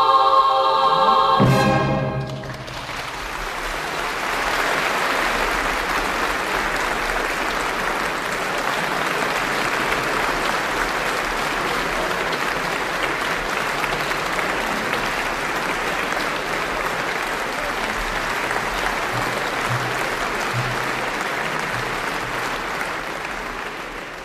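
A children's choir and variety-symphony orchestra hold a final chord that ends on a sharp orchestral stroke about a second and a half in. Then a large concert audience applauds steadily, dying away near the end.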